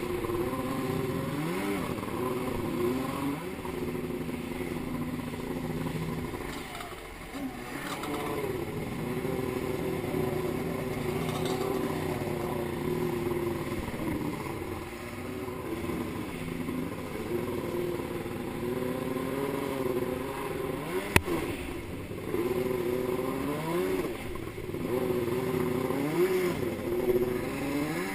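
Two-stroke stand-up jet ski engine running under way, its pitch rising and falling several times as the throttle changes, with water spray hissing around the hull. There is one sharp knock about three-quarters of the way through.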